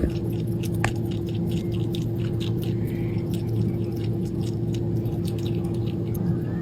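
Many small, irregular clicks and crackles over a steady low hum.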